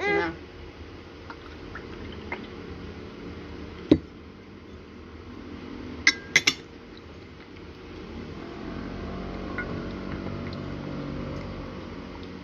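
Clinks of tableware: one sharp knock about four seconds in and two quick clinks about six seconds in. Near the end, water being poured into a glass for a few seconds.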